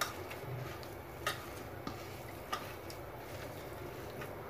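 Hands kneading and squishing minced mutton mixed with spices in a steel bowl, faint, with a few light clicks against the bowl.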